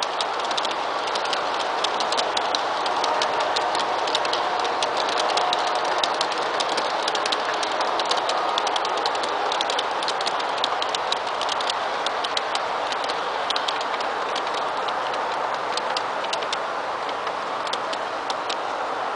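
Garden-railway model freight train rolling past on its track: a steady rumbling whirr of wheels on rail with a rapid, irregular stream of clicks as the cars run over the track and points.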